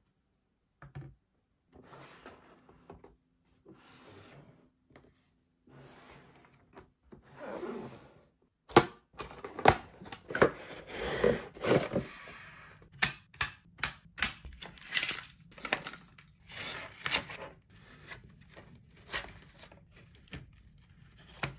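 A cardboard toy box being handled and unpacked. At first there are soft sliding and rubbing sounds, then from about nine seconds in a busy run of sharp clicks, taps and crackles as cardboard flaps and the plastic parts inside are pulled out.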